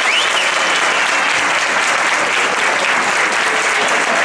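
Audience applauding steadily, a dense continuous clapping that marks the end of a children's song.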